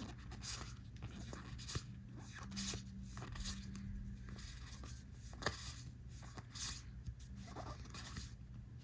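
Trading cards being slid and flipped through by hand: short, faint scraping swishes of card on card at irregular intervals, over a low steady room hum.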